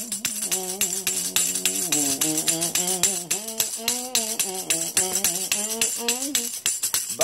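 Small handheld tambourine shaken in a quick, steady rhythm, its metal jingles rattling, with a man singing along without words.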